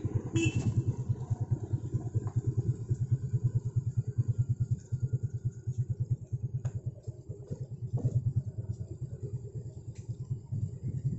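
Motorcycle engine running at low revs: a steady, low, evenly pulsing throb.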